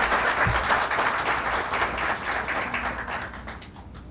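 Audience applauding with dense clapping that thins out and fades toward the end.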